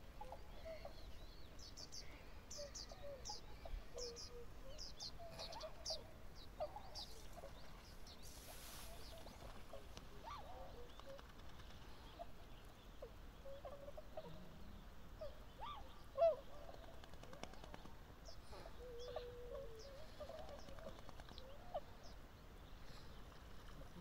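A flock of Bewick's swans (tundra swans) giving scattered soft honking calls, many short notes from different birds. Short high chirps sound in the first several seconds, and one sudden much louder sound stands out about two-thirds of the way through.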